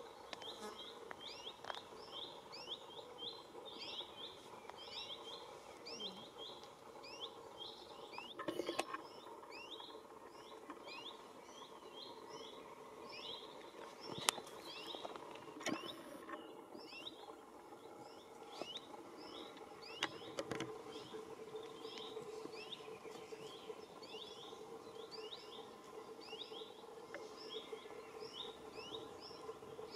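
Small bird chirping over and over outdoors, short high notes that fall in pitch, about two a second, over a faint steady hum, with a few sharp knocks.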